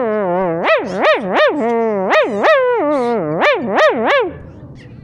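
A man imitating a puppy's whimpering: a rapid string of high, swooping yelps and whines that rise and fall two or three times a second, stopping about four seconds in.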